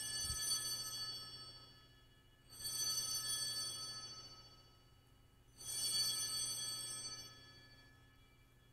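Altar bells rung three times at the elevation of the consecrated host, each bright, high ringing fading away over about two seconds before the next.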